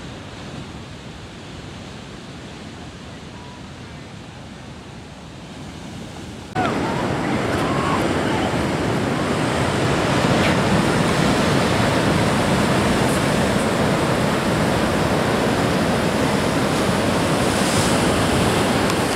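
Ocean surf, a steady rush of breaking waves, with wind noise on the microphone. The sound jumps abruptly louder about six and a half seconds in.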